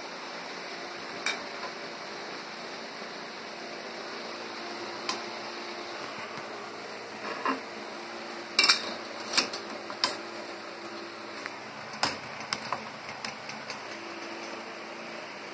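Scattered metallic clinks and clanks from a hand-operated pipe bender being worked: the tube and the bender's steel lever and clamp knocking against its parts. They come over a steady background hiss, and the sharpest clanks fall about eight to ten seconds in and again around twelve seconds.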